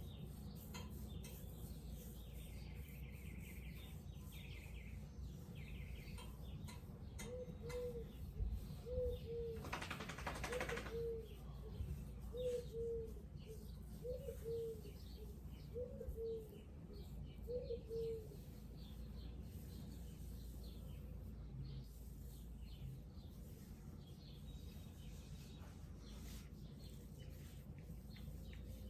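A bird calling outdoors: a run of about ten low, repeated call notes, one every second or so, with a few higher chirps before it, over a steady low background rumble.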